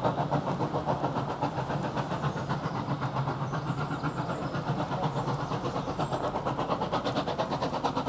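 Exhaust beats of GWR 5700 class pannier tank 7714 and banking saddle tank 813 working a departing steam train: rapid, even chuffs, easing slightly and then holding steady.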